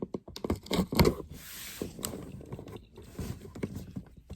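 Cardboard shipping box and packaging being handled: irregular scraping and rustling with scattered knocks.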